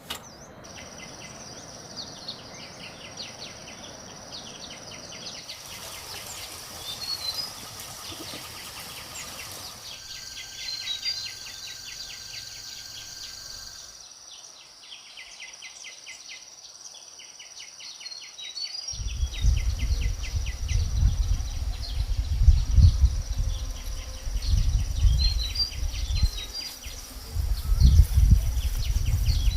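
Insects buzzing and ticking steadily, with birds chirping now and then, in several stretches that switch abruptly. About two thirds of the way in, a loud, gusty low rumble comes in underneath and becomes the loudest sound.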